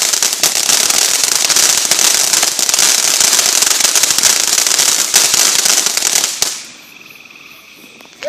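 Consumer fireworks crackling in a dense, rapid run of pops, then stopping abruptly about six and a half seconds in, leaving only a faint hiss.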